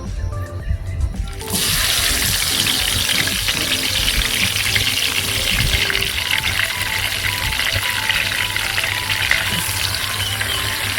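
Marinated chicken pieces frying in hot oil in a pan: a loud, crackling sizzle starts suddenly about a second and a half in as the chicken hits the oil, then carries on steadily.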